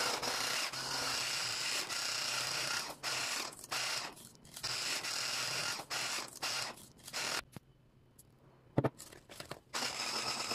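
Electric hand mixer running, its beaters whirring through creamed butter, sugar and beaten egg in a stainless steel bowl with a steady motor whine. The sound drops out briefly several times and goes almost silent for about two seconds past the middle, with a single sharp click in that gap.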